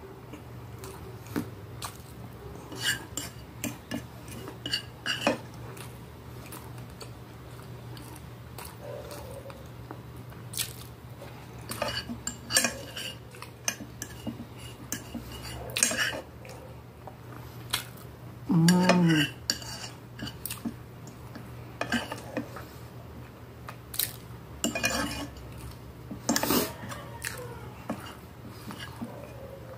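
Metal fork clinking and scraping on a glass plate as food is scooped up, with some chewing. One short, loud vocal sound from the eater comes about two-thirds of the way through.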